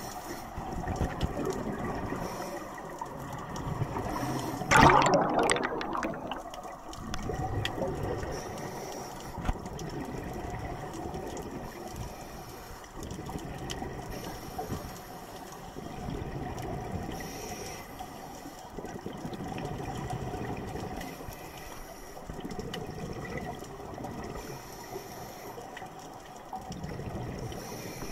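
Underwater ambience of a scuba dive: exhaust bubbles from a diver's regulator gurgling in recurring bursts over a steady water hiss, the loudest burst about five seconds in.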